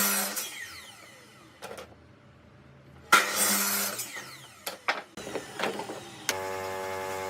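A power tool run in two short bursts, each winding down with a falling whine, then a few sharp knocks. From about six seconds in, a steady electrical hum.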